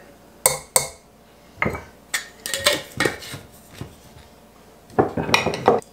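Metal measuring cup clinking and tapping against a stainless steel mixer bowl and a glass jar while powdered sugar is scooped and tipped in: a string of sharp clinks in short clusters, with a few more near the end as the jar is handled.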